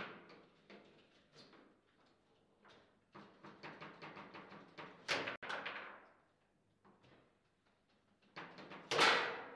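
Table football in play: the ball clacking off the plastic figures and the table walls in quick runs of sharp knocks, with the rods rattling. A loud bang comes near the end as a shot hits the goal.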